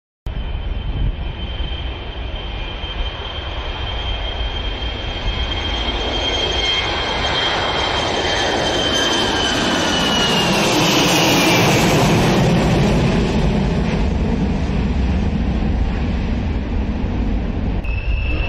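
Jet aircraft flying past: a rising roar with a high turbine whine that drops in pitch as it passes about eleven seconds in, then a lower rumble as it goes away.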